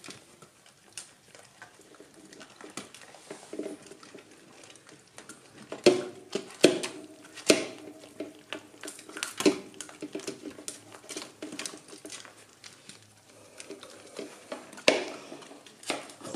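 German Pinscher puppies gnawing and crunching dried pig ears: irregular sharp cracks and clicks, loudest through the middle and again near the end. Now and then a short, low whine.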